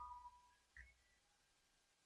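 Near silence: room tone, with one faint short sound just under a second in.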